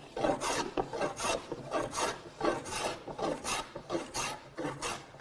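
Scrub plane cutting across a wooden board in a quick series of rasping strokes, the iron shaving wood on each pass.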